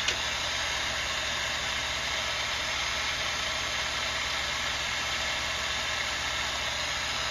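A steady low hum with an even hiss over it, unbroken and unchanging: a running background source, with no flute notes played.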